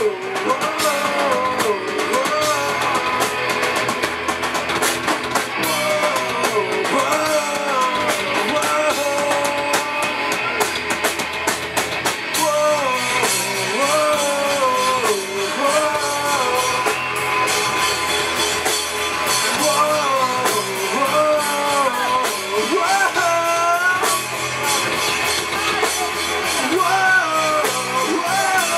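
Live rock band playing a song: a man singing over electric guitars, bass guitar and drum kit, amplified through the PA.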